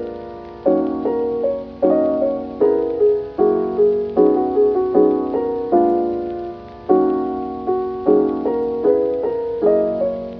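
Background piano music: soft chords and single notes struck about one or two a second, each dying away, fading out at the very end.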